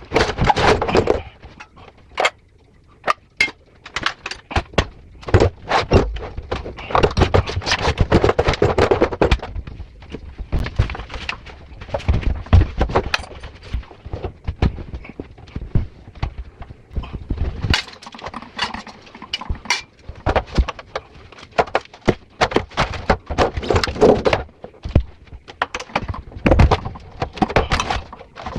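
Irregular knocks, clicks and clattering from hand work with tools and parts, in uneven clusters of strikes.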